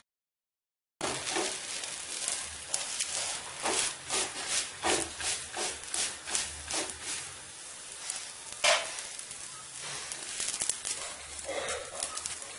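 A rolled chapati being laid and pressed by hand on a hot iron tawa over a gas stove. There is a run of short ticks and taps about two a second, one louder knock past the middle, and a faint low hum underneath. The sound cuts out completely for the first second.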